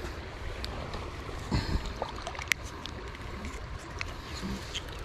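Steady outdoor water-and-wind noise with a low rumble, broken by a dull thump about a second and a half in and a few sharp clicks.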